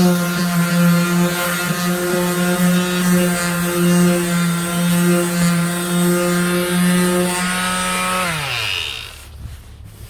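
Handheld electric power tool motor running at a steady high speed, then switched off about eight seconds in and winding down in pitch to a stop.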